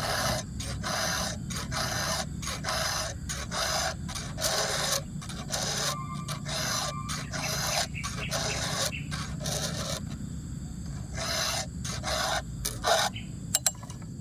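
Chainsaw chain being sharpened with a file: even rasping strokes, about two a second, a short pause, a few more strokes, then two sharp clicks near the end.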